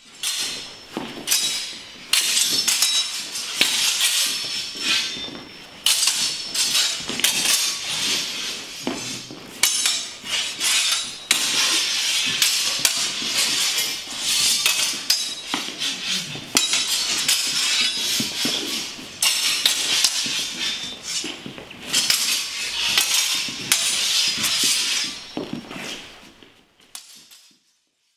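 Steel training longswords clashing and binding in a continuous partner drill: a fast, irregular run of ringing metal strikes with brief pauses, dying away near the end.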